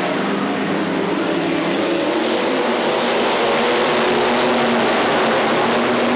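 A pack of IMCA SportMod dirt-track race cars running at speed, their V8 engines blending into one loud, steady sound. Several engine notes rise and fall as the cars go through the turn and past.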